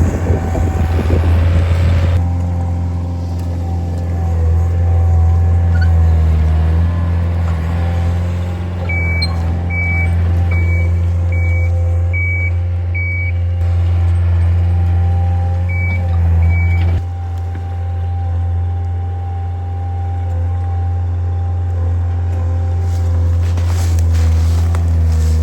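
A heavy machine's engine running steadily under load. Its back-up alarm beeps six times about 9 seconds in and twice more about 16 seconds in, the sign of the machine reversing.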